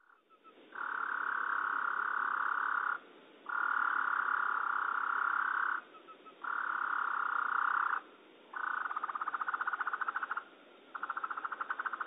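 Clay-colored sparrow song slowed down to a deep, insect-like buzz: five long buzzes of about two seconds each, with short gaps between them. The last two break into a rapid rattling pulse.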